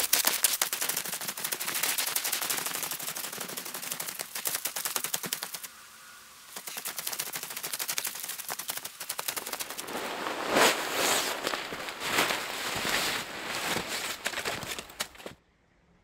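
Boots stamping and packing down snow for a tent platform: a fast, dense run of crunches, the footage sped up, easing briefly about six seconds in and cutting off suddenly near the end.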